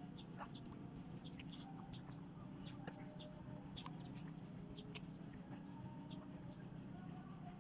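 Short high-pitched animal chirps and squeaks, scattered irregularly, over a steady low hum.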